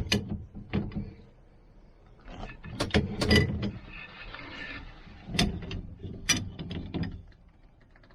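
Metal tool work on a big nut and its fitting: a wrench tightening it, making irregular clicks and knocks, with a brief scraping rattle around four seconds in.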